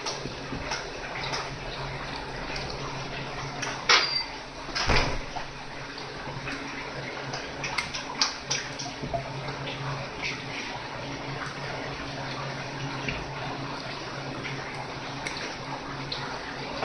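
Water running steadily, with scattered clicks and snips from kitchen shears cutting open a mullet's belly. The two sharpest knocks come about four and five seconds in.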